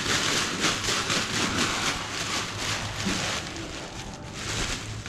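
Paraglider canopy's ripstop nylon rustling and crinkling as it is bunched and folded by hand: a steady run of crackles that dips briefly about four seconds in.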